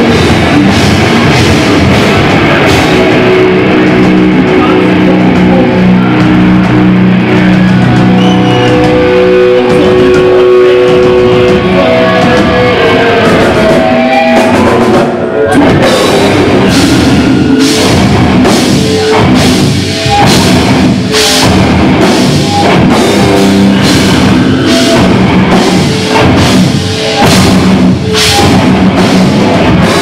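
Heavy metal band playing live, very loud: electric guitar holding long sustained notes over drums for the first part. After a short break about halfway, the drums come in hard and fast under the guitars.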